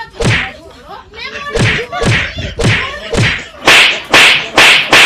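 A quick series of about nine hard slapping blows in a scuffle: one at the start, then roughly two a second, with the last four the loudest.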